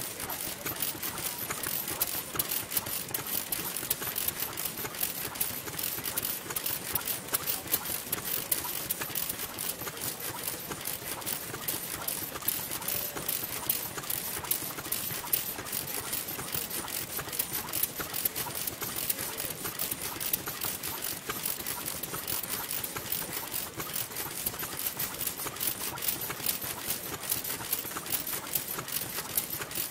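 NODA stationary petroleum engine running, a steady rapid clatter of clicks and knocks from its moving parts, with a second engine running close by.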